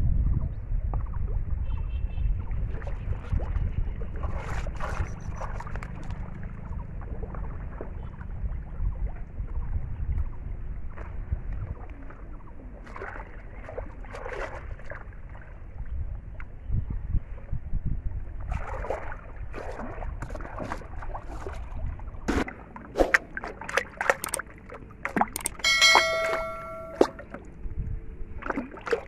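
Water sloshing and splashing as a person wades through a weedy pond and handles plastic bottles in the water, with a steady low rumble in the first half and scattered sharp splashes and clicks later. A brief ringing tone sounds near the end.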